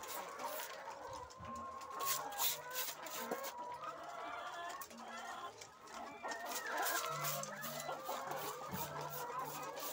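Many caged brown laying hens clucking and calling over one another, with scattered sharp clicks throughout.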